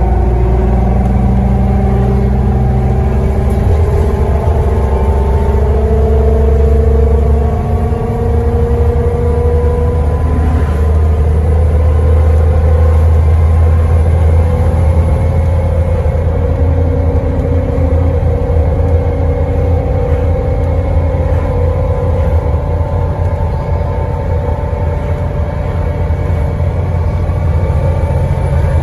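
Scania N94UD bus driveline heard from inside the saloon while driven hard: the engine runs under heavy load with a loud differential whine whose pitch climbs steadily as the bus gathers speed. The low engine note drops briefly about eight seconds in, then picks up again.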